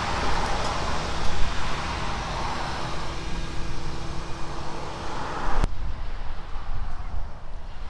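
Motor vehicle noise: a steady rumble with a rushing hiss. It cuts off abruptly about five and a half seconds in, leaving a quieter low rumble.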